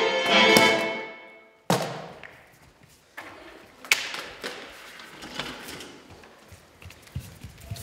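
Violin music fading out, then a sharp knock, a second one about two seconds later, and softer thuds and taps from performers' bare feet on a wooden stage and a wheeled table being handled.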